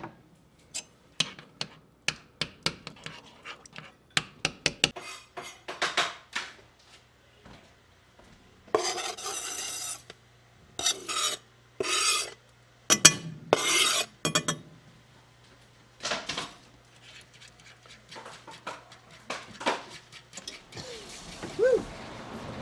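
A metal utensil clinking and tapping against a small metal saucepan of melted butter, many short clicks. Midway, a knife scraping chopped herbs off a cutting board into the pan, three rasping scrapes of a second or so each, then more clinking.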